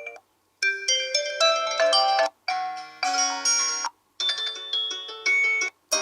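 Realme C25y smartphone ringtones previewed one after another. Three short melodic snippets each cut off abruptly, with a brief silence between them, and a fourth begins near the end.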